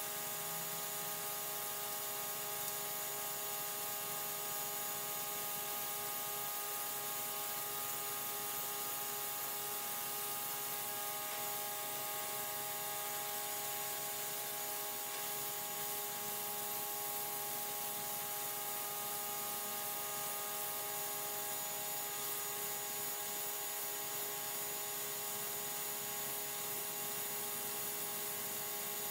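Simoniz 1800 PSI electric pressure washer running steadily, its motor and pump giving a constant hum with several steady whining tones, over the hiss of the water jet spraying onto concrete.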